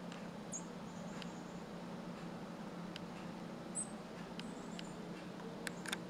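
A few brief, high, thin calls of chickadees, with faint ticks between them, over a steady low hum.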